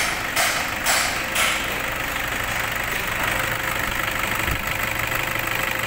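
Toyota Fortuner's 2KD 2.5-litre four-cylinder turbodiesel idling steadily, running again on a newly fitted timing belt, tensioner and idler bearing.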